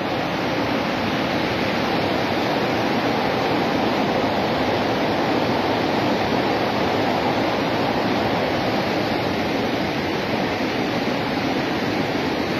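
Steady, loud rush of a fast mountain river running white over rocks.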